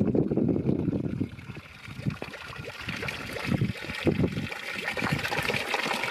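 Water spouting from a metal pipe into a stone trough: a steady splashing trickle that grows louder from about two seconds in. Wind rumbles on the microphone during the first second.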